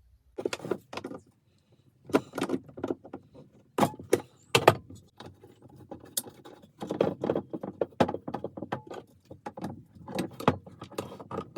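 Irregular clinks, knocks and rattles of metal parts and tools being handled while fitting alloy radiators to a motorcycle, with a few louder sharp knocks about four to five seconds in.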